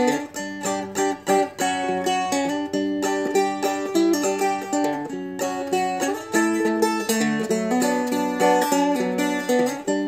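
Seagull Merlin, a four-string fretted dulcimer-style instrument, playing a tune picked in two-finger clawhammer style: a run of quick plucked melody notes over ringing drone strings.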